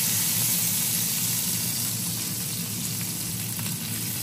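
Steak frying in hot butter in a pan, a steady sizzle that eases slightly after about two seconds.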